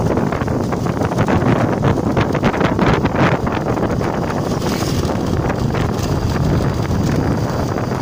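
Loud wind buffeting a camera microphone on a moving vehicle, a steady rushing over the vehicle's running noise, with stronger gusts in the first half.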